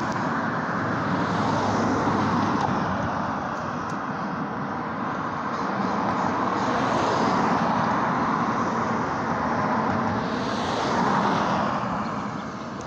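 Road traffic: cars passing on the street, the noise swelling and fading about three times.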